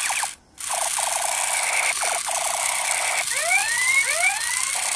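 Battery-powered toy machine gun playing its electronic firing sound effect through a small speaker: a rapid-fire rattle of clicks, mixed with rising laser-like zips. It cuts out briefly near the start and again about two seconds in, and the rising zips come back around three to four seconds in.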